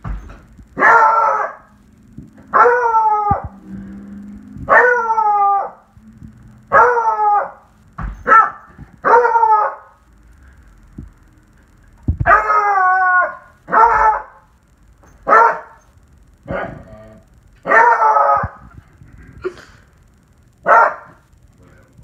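A one-year-old beagle howling in a string of more than a dozen short howls. Each howl lasts under a second, drops slightly in pitch, and comes every second or two.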